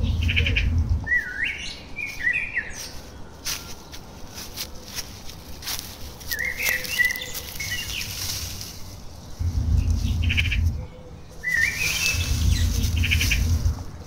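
A small songbird repeats a short phrase about three times: a quick trill, then a run of chirping notes. Between phrases there are scattered crisp crackles of dry fallen leaves and a few low rumbles.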